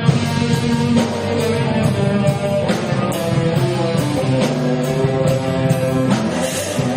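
A live rock band playing guitar-led music, with sustained chords and notes over regular drum and cymbal hits.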